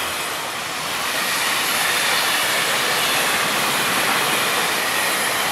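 Freight train wagons rolling past on the track: a steady, continuous noise of steel wheels on rails, getting a little louder about a second and a half in.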